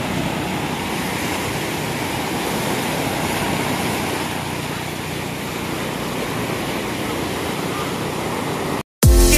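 A steady rushing noise, without distinct events, that cuts off abruptly near the end; loud music with a beat starts right after.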